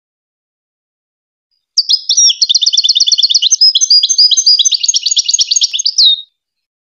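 European goldfinch singing in the Moroccan 'wadani' style. About two seconds in, one phrase of about four and a half seconds begins: fast runs of repeated high notes and twitters, ending on a falling note.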